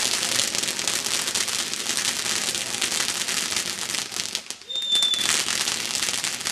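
Fireworks crackling, a dense rapid run of small pops that eases for a moment about four and a half seconds in. Right after, a short high-pitched whistle sounds.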